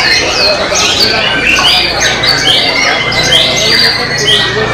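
White-rumped shama (murai batu) singing in full contest song: a fast, unbroken run of loud whistled notes and quick downward-sweeping phrases, repeated over and over.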